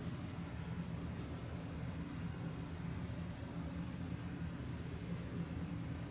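Short-bristled paintbrush scrubbing Derwent colour into paper: quick scratchy strokes, about three a second, that stop about five seconds in. A steady low hum runs underneath.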